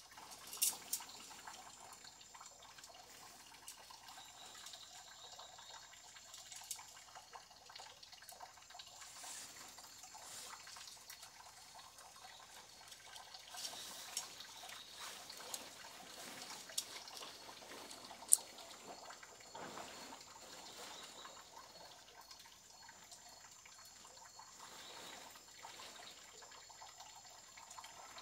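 Water trickling and dripping, with a thin steady high drone like night insects and a few sharp clicks, the loudest about eighteen seconds in.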